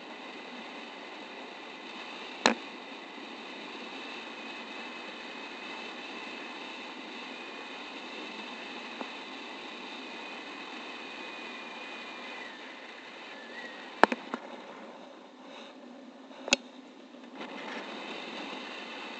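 Steady rush of wind over a paraglider pilot's body-mounted camera in flight, broken by three sharp clicks: one a couple of seconds in and two close together near the end.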